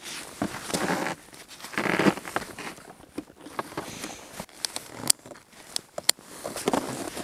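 Rustling and crinkling with many scattered sharp clicks and snaps, and two louder swells of rustling in the first two seconds.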